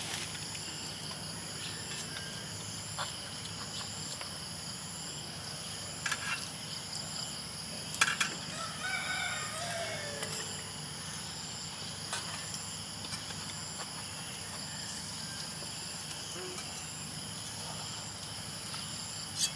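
A rooster crows once, about nine seconds in, over a steady high chorus of insects. A few sharp clicks, the loudest about eight seconds in.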